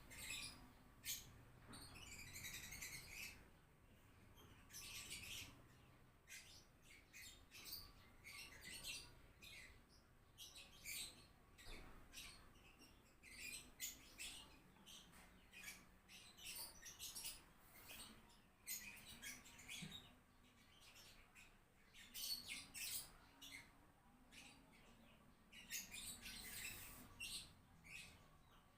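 Faint, repeated high chirps from small birds, coming in short bursts every second or so.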